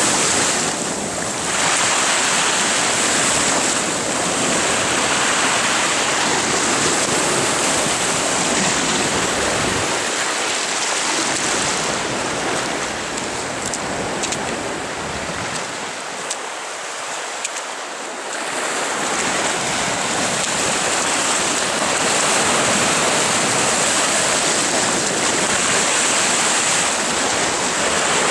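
Surf breaking and washing over shore rocks: a steady, loud rush of waves and foam that eases a little for a few seconds past the middle.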